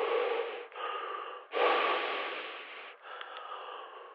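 Heavy breathing heard over a phone line, thin and without bass. There are slow in-and-out breaths, two long loud ones with quieter breaths between them.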